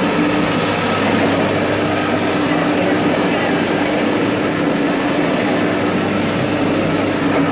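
Electric sugarcane juice press running with a steady hum as cane stalks are fed through its rollers, over the chatter of a market crowd.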